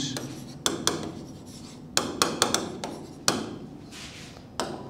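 Stylus pen tapping and rubbing on the glass of an interactive touchscreen whiteboard as letters are written: a string of sharp, uneven clicks, several in quick succession about two seconds in.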